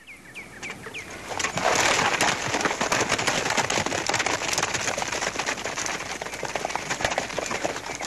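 Several horses ridden at speed, their hoofbeats making a dense clatter that starts about a second and a half in. A few short bird chirps come just before it.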